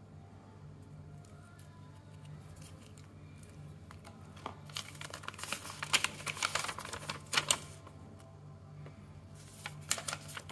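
Paper crinkling and crackling as a folded paper instruction sheet is handled and unfolded: a dense run of crackles for about three seconds in the middle, and a shorter burst near the end, over a low steady hum.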